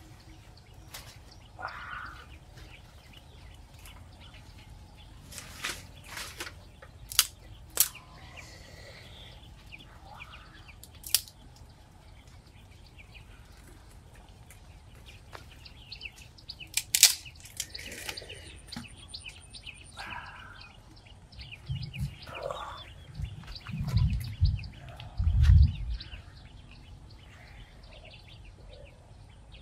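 Outdoor ambience with birds chirping now and then, broken by scattered sharp clicks and knocks, and a few loud low thumps near the end.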